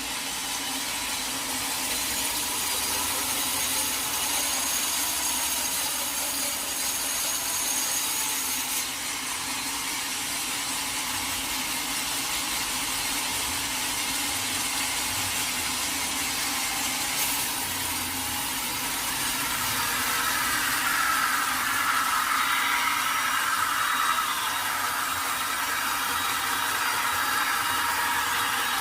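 Sawmill saw running and cutting through a teak log, a steady rasping whine over a constant low hum.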